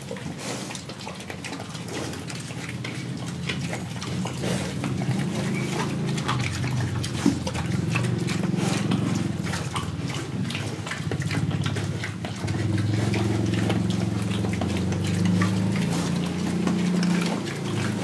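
Young pigs eating, with many quick wet clicks and smacks from their mouths, under low grunting that grows louder from about halfway through.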